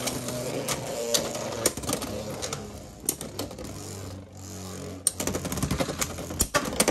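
Two Beyblade X spinning tops, Rhino Horn 3-80 Spike and Dran Sword, spinning in a plastic stadium with a low whir, clattering and knocking against each other and the stadium in quick sharp clicks. The hits ease off about four seconds in, then pick up again.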